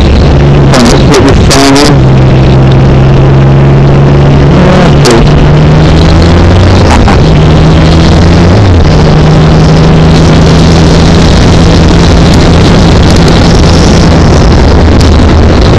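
Triumph Trophy motorcycle engine running at road speed, buried in loud wind buffeting on the microphone. The engine note steps up and down in pitch a few times.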